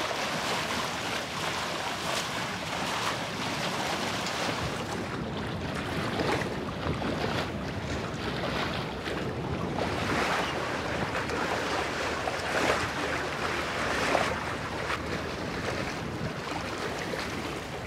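Water rushing and splashing along the hull of a sailing catamaran under way, rising and falling irregularly, with wind buffeting the microphone.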